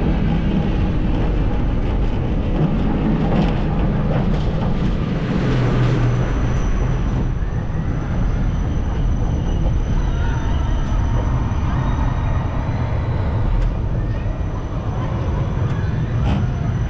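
Steady rumble and rattle of a Wiegand Coaster-Kart running along its metal trough track, heard on board the moving car.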